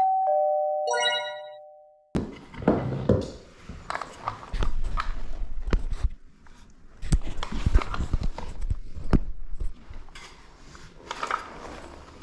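A two-note chime rings at the start and fades away over about two seconds. It is followed by a run of irregular knocks, taps and scraping from hand work.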